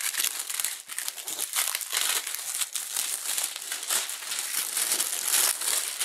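Plastic shrink-wrap film being torn and pulled off a cardboard box, crinkling and crackling in quick irregular bursts throughout.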